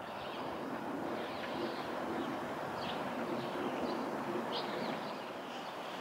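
Steady outdoor background rumble, with several faint, short high bird chirps scattered through it.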